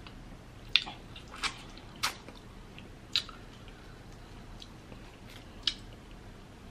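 Close-up eating sounds from a mukbang: about five short, wet, sticky clicks and smacks, spread out, from chewing and from peeling a sauce-coated boiled shrimp by hand.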